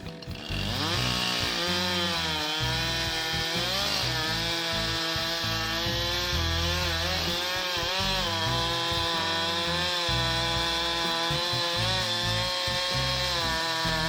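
Chainsaw revving up about half a second in, then running at high speed through a cut, its pitch dipping and recovering repeatedly as the chain bites into the wood.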